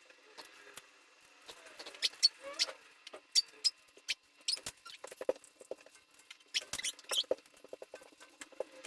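Small pet parrot making short squeaky chirps mixed with sharp clicks, irregular and scattered.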